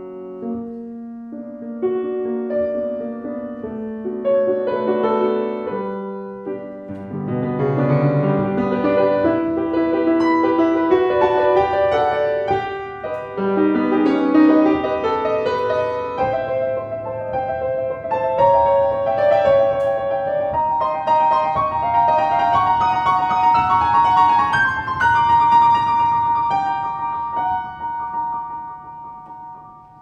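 Solo piano playing a classical piece. It starts with sparse notes, grows fuller and louder about seven seconds in, then thins and fades near the end.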